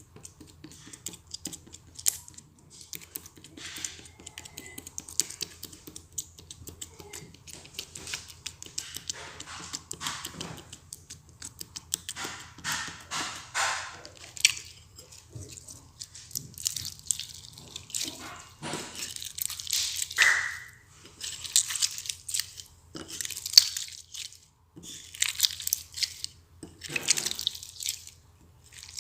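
Slime being squeezed and stretched by hand: wet, sticky clicks, squelches and small air-bubble pops coming in irregular bursts.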